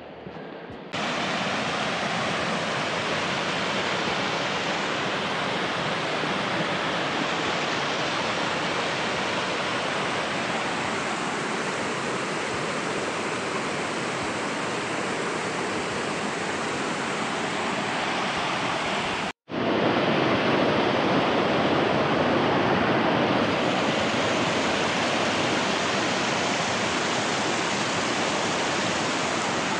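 Mountain stream rushing steadily, a continuous hiss of fast-flowing water. It breaks off for an instant about nineteen seconds in, then carries on a little louder.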